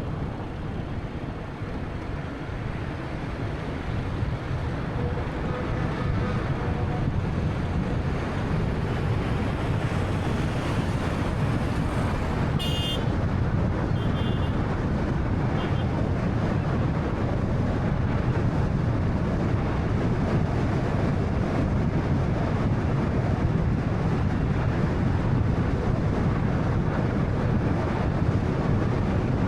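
Road noise of a 2013 Honda Fit with its 1.3-litre engine under way: a steady rumble of tyres and engine that grows louder over the first several seconds, then holds. About halfway through come three brief high-pitched chirps.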